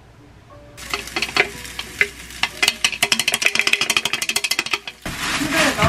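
Finely chopped hot-pepper seasoning sizzling as it is poured into an oiled square frying pan, with quick clicks and scrapes of the container and spatula against the pan. From about five seconds in comes a louder, steady sizzle as the mix is stir-fried.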